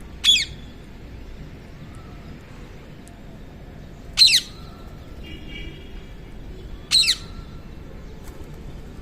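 Rose-ringed parakeets giving three short, high calls a few seconds apart, each falling sharply in pitch.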